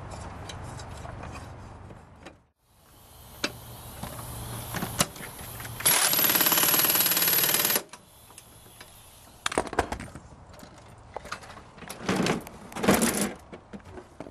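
Air impact wrench hammering for about two seconds, a little past the middle, tightening the bolt that holds the lawn mower blade. Scattered knocks and clatter of parts being handled come before and after it.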